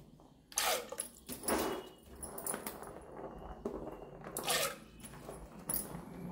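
A hand swishing water and pomegranate seeds around in a clay pot: four short splashy swishes.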